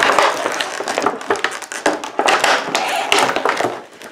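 Clear plastic bag crinkling and crackling as it is handled right at the microphone, a dense run of crackles that dies away near the end.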